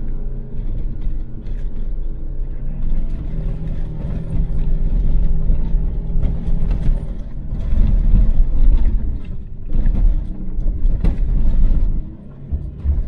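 Volkswagen Touareg V6 TDI diesel engine pulling along a sandy off-road track, heard from inside the cabin, with low rumble and repeated knocks from the body and suspension over the bumps. It gets louder for several seconds past the middle and eases off near the end.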